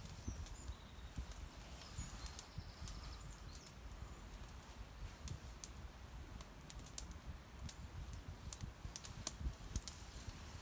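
Wood campfire of dry split hazel crackling, with scattered sharp irregular pops, over a low wind rumble.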